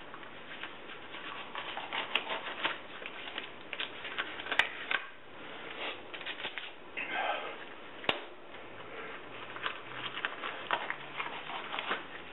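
Yellow rubber gloves being pulled on by hand: quick crinkling and rubbing clicks, with a couple of sharper snaps and a brief rubbery squeak.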